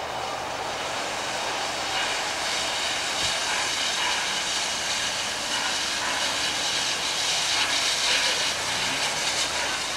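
Narrow-gauge steam locomotive with a steady hiss of escaping steam, which builds about two seconds in and is strongest near the end.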